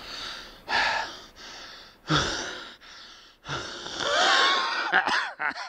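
A man's breathy vocal noises, wheezing and gasping in several bursts; the longest, about four seconds in, has a wavering pitch.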